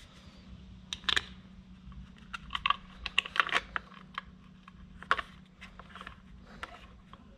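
Irregular light clicks and taps of hands fitting a Screamin' Eagle air cleaner cover onto its backplate and threading its bolts by hand.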